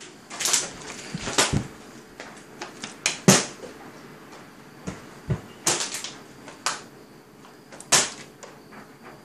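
A series of irregular knocks and thumps, about eight over several seconds, the loudest about three seconds in and another strong one near the end.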